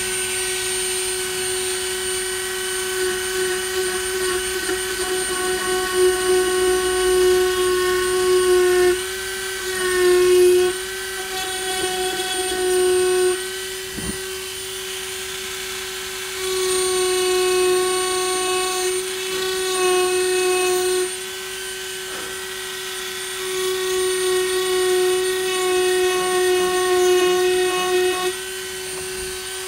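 Dremel rotary tool with a round engraving bit running at about 20,000 RPM: a steady high-pitched whine that grows louder in several stretches as the bit grinds into weathered wood.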